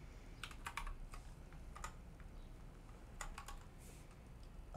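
Typing on a computer keyboard: keystrokes in a few short runs with pauses between, as a spreadsheet formula is entered.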